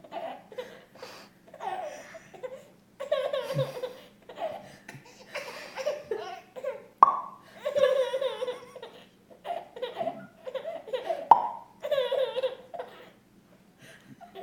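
Repeated bouts of a person laughing, set off by a sharp popping noise, with loud pops about seven and eleven seconds in.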